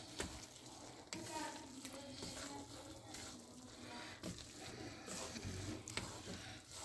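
Wooden spoon stirring grated carrots in a steaming nonstick pan, with a few sharp knocks of the spoon against the pan over a soft sizzle as the carrots cook down in their own water.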